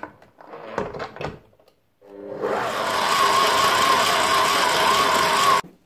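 A few knocks, then an electric stand mixer starts about two seconds in, its dough hook kneading dough. The motor runs steady and very noisy, with a slightly wavering whine, and cuts off suddenly near the end.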